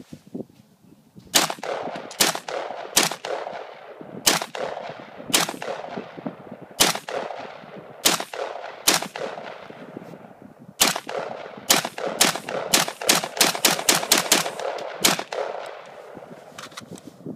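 Daniel Defense DDM4V1 AR-15 rifle firing Tula .223 ammunition shot by shot, each shot echoing: about twenty shots, roughly a second apart at first, then a quicker string of shots about a third of a second apart near the end.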